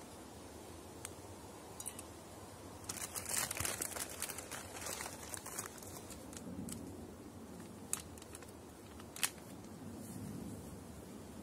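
Plastic packaging and a plastic bottle being handled: a few seconds of crinkling and crackling a few seconds in, then two sharp clicks about two-thirds of the way through.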